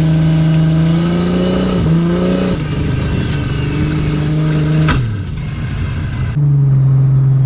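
A car engine running at steady revs, rising slightly about two seconds in. Its note dips with a sharp click about five seconds in, then switches abruptly to a lower steady note.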